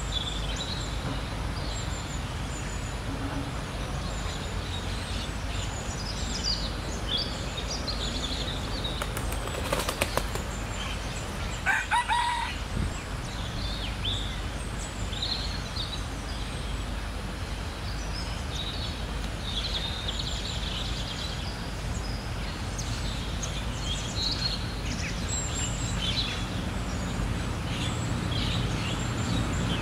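Outdoor birdsong: many short, high chirps from small birds over a steady low rumble, with a brief rustling burst about ten seconds in and a short red junglefowl call just after it.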